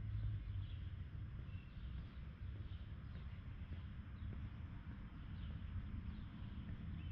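Outdoor ambience: a steady low rumble with small birds chirping faintly now and then.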